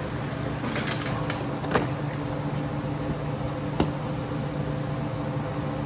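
Steady motor hum, with a few light clicks over it, the sharpest about two seconds and four seconds in.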